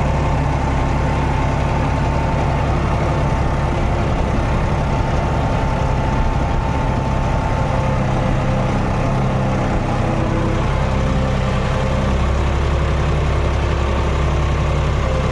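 John Deere 5210 tractor's diesel engine running steadily, with a faint steady whine above the engine note.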